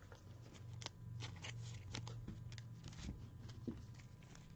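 Faint, scattered clicks and light handling noise, typical of trading cards and their plastic holders being handled on a table, over a low hum.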